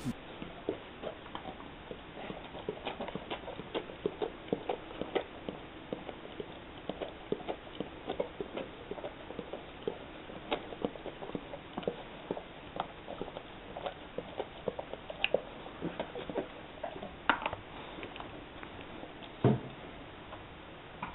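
A dog licking at a plastic bottle held to its mouth: quick, irregular wet licking clicks, several a second, with one louder thump near the end.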